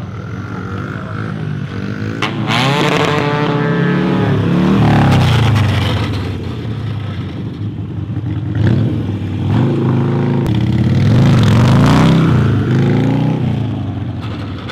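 Modified Harley-Davidson Sportster's V-twin engine revving hard during stunt riding. Its pitch climbs and falls in two long surges, loudest about a third of the way in and again about three-quarters of the way in.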